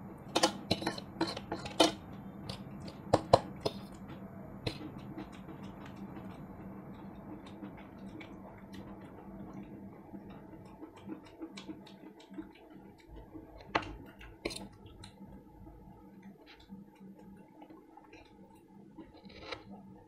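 Metal forks and spoons clinking and scraping against steel plates while eating fried rice, with a cluster of sharp clinks in the first few seconds and scattered, quieter ones after.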